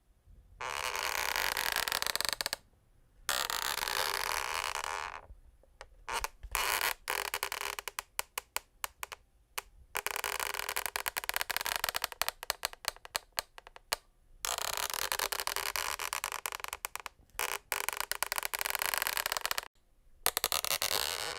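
Wooden parquet floor creaking: long crackling creaks lasting from one to several seconds, separated by short pauses, with a run of quick separate cracks between about six and ten seconds in.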